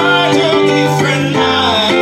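Small acoustic band playing an African reggae tune: a fretless Gold Tone acoustic bass with rubber strings, a bowed violin and a ukulele.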